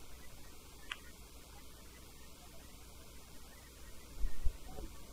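Steady low electrical mains hum, with a faint click about a second in and a couple of low thuds about four seconds in.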